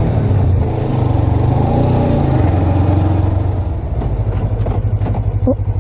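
Suzuki GSX250R's parallel-twin engine running under way, heard from the bike itself. Its note falls as the bike slows toward a junction.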